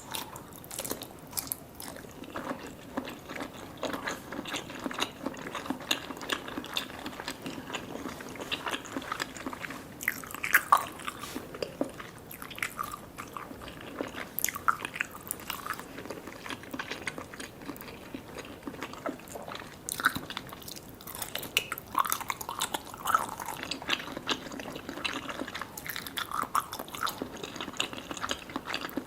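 Close-miked eating of soft, sticky Vietnamese jelly desserts: bites and wet, sticky chewing with many irregular smacks and clicks.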